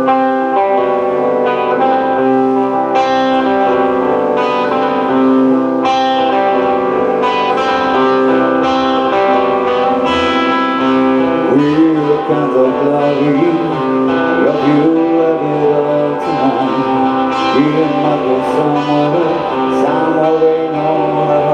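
A live band playing with guitar over held sustained notes; a voice comes in singing about halfway through.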